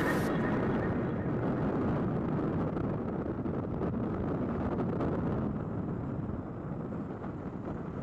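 A steady, even rushing noise that grows slightly quieter toward the end.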